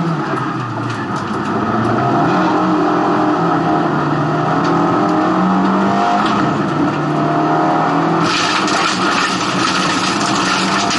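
Race car engine heard from inside the cabin, revving up and dropping back through gear changes. About eight seconds in, a loud hiss joins the engine.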